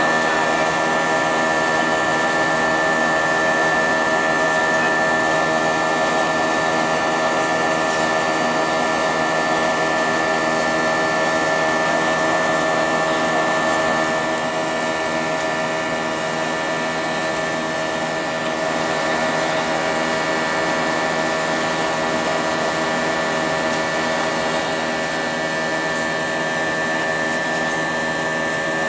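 Cabin noise of an Airbus A320 in flight from its IAE V2527-A5 turbofan engines: a steady drone over hiss, with many steady tones held throughout. It eases slightly about halfway through.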